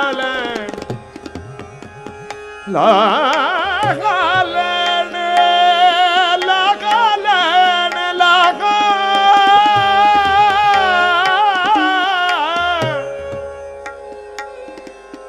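Shabad kirtan music: bowed string instruments play a wavering, sliding melody over tabla. The melody is loud from about three seconds in and falls away near the end, leaving the quieter tabla and drone.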